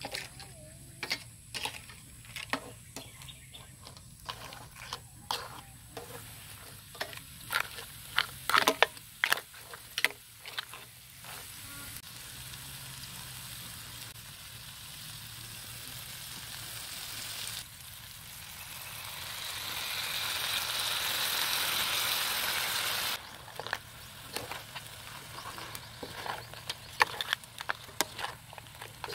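Crabs and garlic stir-frying in a wok: a utensil scrapes and knocks against the pan over a low sizzle. In the middle a steady sizzling hiss builds for several seconds, then cuts off suddenly, and the clatter of stirring returns.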